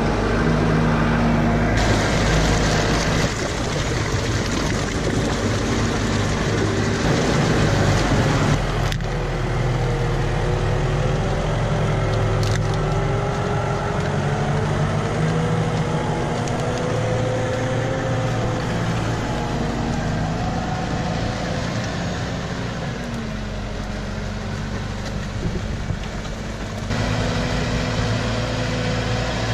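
Tractor diesel engines pulling loaded forestry trailers through mud, working under load with the engine pitch rising and falling. The sound changes abruptly about two seconds in, about nine seconds in and near the end, as one clip of a working tractor gives way to another.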